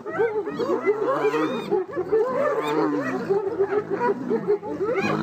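Several wild animals calling at once in a fight: quick, short, yelping notes repeat several times a second over lower, drawn-out growling calls that rise and fall.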